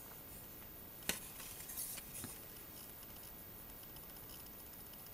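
Plastic model-kit parts being handled: a sharp click about a second in, then about a second of crinkly rustling, like the plastic bags of the sprues, over a faint steady hiss.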